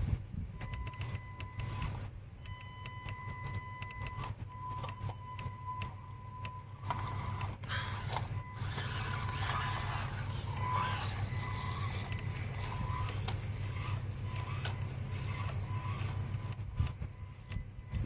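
An electric RC rock crawler's motor and drivetrain gears whining in short on-and-off runs as it is throttled over rocks. In the middle there is a rougher scraping, as the tyres scrabble on rock and gravel.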